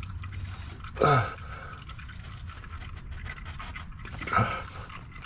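A man's two short strained grunts, about three seconds apart, each falling in pitch, as he strains to twist a stuck oil filter off by hand.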